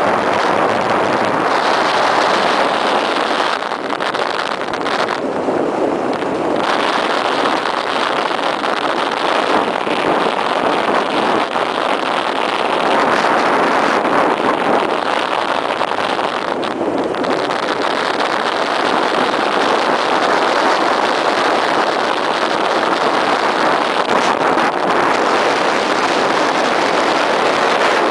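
Sled speeding downhill over packed snow at about 50 km/h: a steady rushing of runners on the snow, with wind buffeting the microphone.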